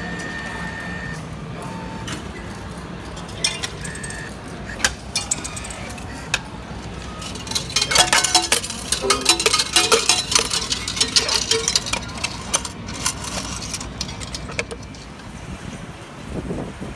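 Ticket vending machine giving short beeps, then a dense run of metallic clinks for several seconds as coins and a fare token drop into the return tray and are picked out by hand.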